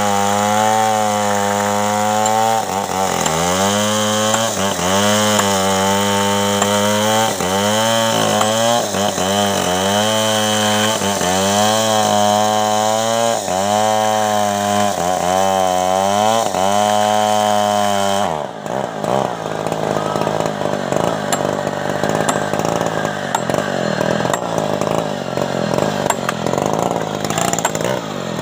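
Stihl chainsaw running at full throttle while cutting through a teak log, its engine pitch dipping under load and recovering about every second and a half as the chain bites. About 18 seconds in, the sound changes abruptly to a rougher, noisier rasp without a clear engine note.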